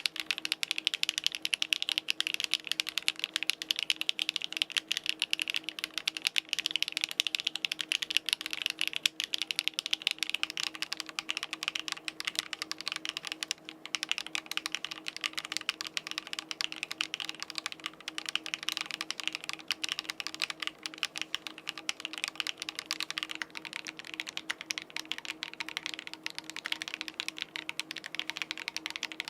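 Rapid, continuous typing on a MatrixLab PLATO75 custom mechanical keyboard: a dense, unbroken stream of key clicks.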